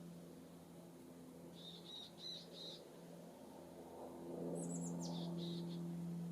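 Small songbirds calling: a quick run of four or five high notes about two seconds in, then a burst of very high notes falling in pitch a little later. Under them runs a steady low hum, which grows louder about two-thirds of the way through.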